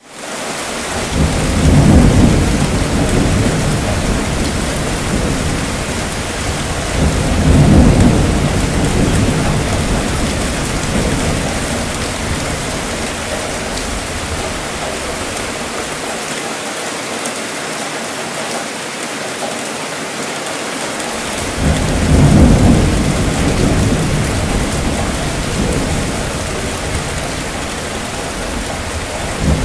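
Steady rainfall with rumbling thunder: three long rolls of thunder, about two seconds in, about eight seconds in and about twenty-two seconds in, each swelling and then slowly fading back under the hiss of the rain.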